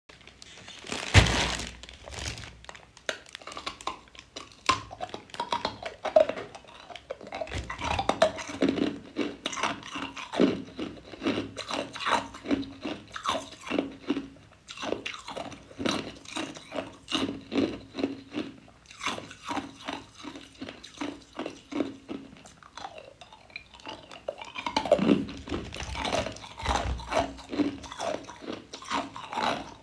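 Clear ice cubes being bitten and chewed, a long run of irregular sharp crunches.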